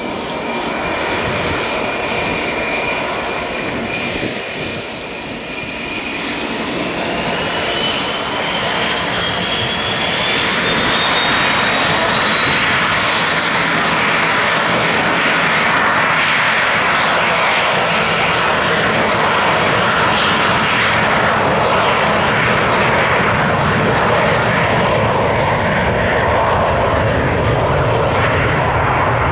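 Hawker 850XP business jet's two turbofan engines spooling up to takeoff power. A high whine rises in pitch from about six seconds in, and the engine noise grows louder, then holds steady as the jet rolls down the runway on its takeoff run.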